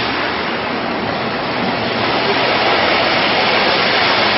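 A steady rushing noise, even throughout, with no distinct events in it.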